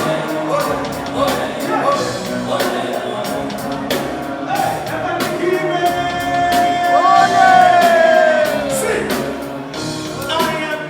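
Live band music with a singer on stage, over a steady beat; about six seconds in a voice holds one long note for a few seconds and slides down at the end.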